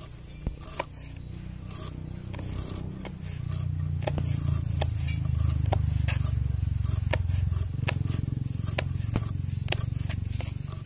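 Cabbage being sliced on an upright curved-blade cutter (aruvamanai): crisp crunching cuts, one every second or so. A low rumble swells underneath from about a second in and is the loudest sound through the middle.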